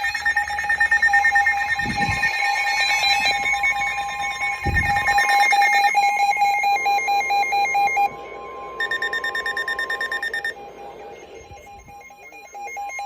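Several NOAA weather radios sounding their warning alarms at once: overlapping electronic beeping and steady tones, including a steady tone near 1 kHz. Part of the beeping stops about 8 seconds in, and more drops out about 10 seconds in. Two dull low thuds come early on.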